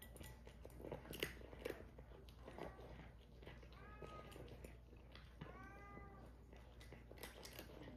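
A cat eating dry kibble from a bowl, with a few sharp crunching clicks about a second in, and a cat giving a few short meows in the second half.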